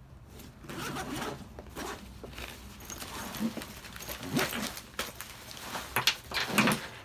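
Zipper on a nylon tactical backpack being run to open the main compartment, in several pulls, with the canvas flap rustling and gear shifting inside.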